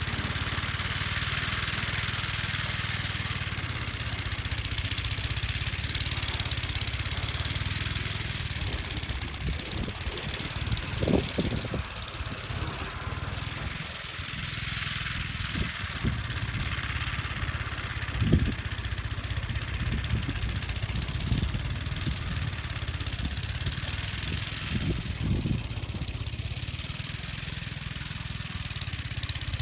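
1959 Gravely Model L walk-behind tractor's single-cylinder engine running steadily under load as its snowblower attachment chews through deep snow, over a constant hiss. A few brief low surges come and go along the way.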